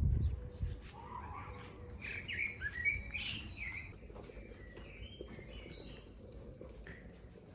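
Small birds chirping and singing in quick short calls, busiest in the first half, over a faint low rumble.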